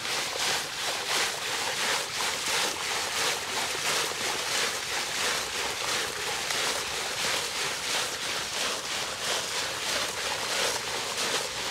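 Shallow seawater splashing and swishing as a mesh net is dragged through it by people wading: a steady rushing hiss that swells and fades every half second or so.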